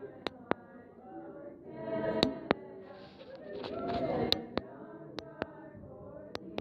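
Singing voices, like a crowd or choir singing or music playing, rising in two swells. About eight short, sharp cracks are scattered through it.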